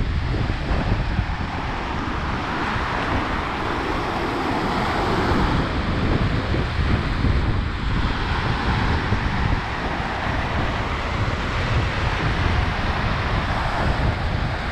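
Strong wind buffeting the microphone in a steady low rumble, with waves washing onto the shore underneath.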